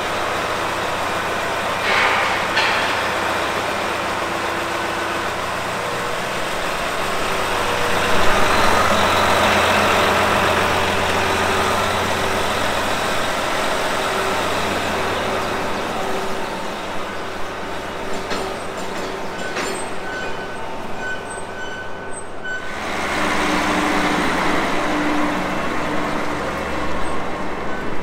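Heavy farm vehicle's diesel engine running steadily as it moves. The engine note changes abruptly about 22 seconds in.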